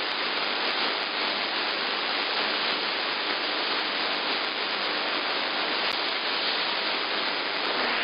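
Steady hiss and static from an AM receiver tuned to CB channel 11 (27.085 MHz), cut off above about 5 kHz by the receiver's filter, with no voice coming through.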